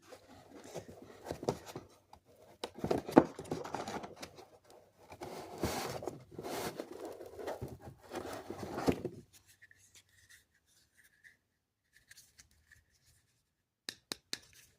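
Vacuum parts and packaging being handled in an unboxing: irregular rustling and scraping of plastic, then a few sharp clicks near the end.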